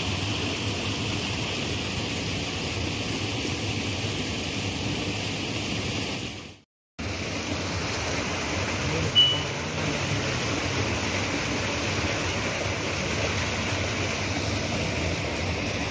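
Steady rushing of river water, which cuts out for a moment about six and a half seconds in, with a brief knock at about nine seconds.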